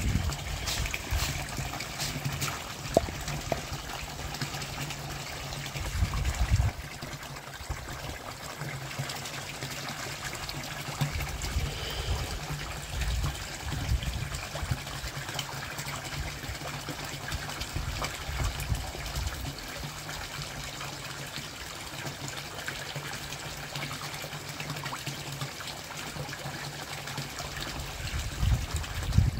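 Water trickling steadily into a koi pond, with intermittent low buffeting on the microphone.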